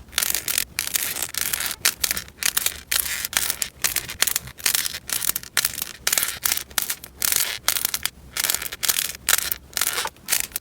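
Slime being squeezed and pressed by hand, giving a run of short crackling crunches about twice a second.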